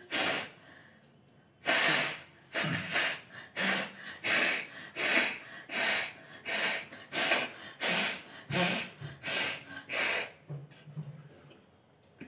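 A person blowing her nose hard over and over, clearing a nose congested with a cold: one blast, then a steady run of about thirteen more, each a fraction of a second apart, stopping about ten seconds in.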